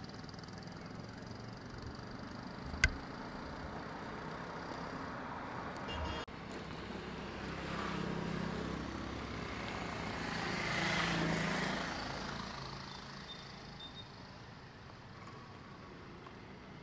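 A single sharp crack of a cricket bat striking a ball about three seconds in. A motor vehicle swells and fades past in the background around the middle, over steady outdoor background noise.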